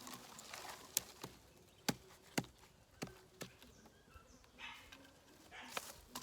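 Cold Steel Rajah II large folding knife chopping into firewood: a run of sharp, irregularly spaced wooden strikes, the loudest in the first half.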